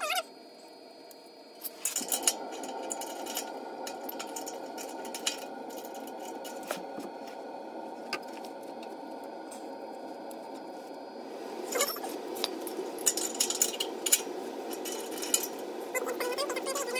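Light metallic clinks and taps of exhaust parts and hardware being handled and fitted under the vehicle, more frequent near the end, over a steady background noise that starts about two seconds in.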